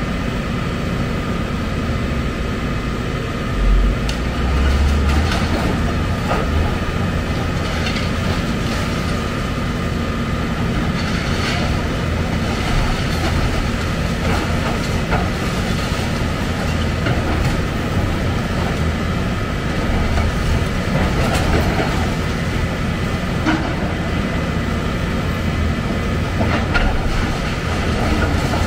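Heavy excavator running steadily under load, with scattered knocks and crunches of demolition debris and a heavier low thump about four seconds in.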